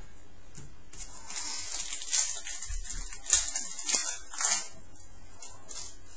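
A foil trading-card pack wrapper crinkling and tearing open as a new pack is opened, in a run of crackly rustles with sharper rips about three seconds in, at four seconds and just after.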